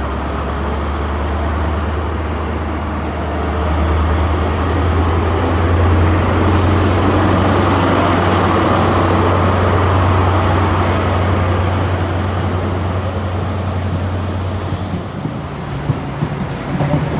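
Diesel engine of a Class 43 HST power car revving as the train pulls away from the platform: a loud, deep, steady engine drone with the coaches rumbling past. A brief hiss comes about seven seconds in, and the drone fades near the end as the coaches go by.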